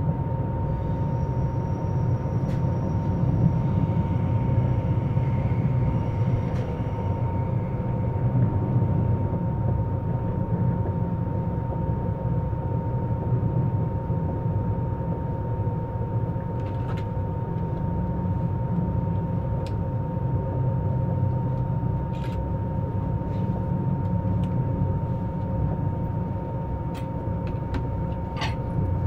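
Eurostar Class 374 (Siemens Velaro E320) high-speed train decelerating under 1,500 V DC, heard from on board: the IGBT traction inverter's braking sound over the low rumble of running. Two steady tones hold throughout, and faint higher tones come and go in the first several seconds. A few short sharp clicks come in the second half.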